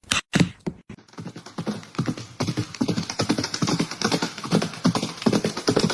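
A fast, uneven run of knocks and clatter, several a second, starting abruptly.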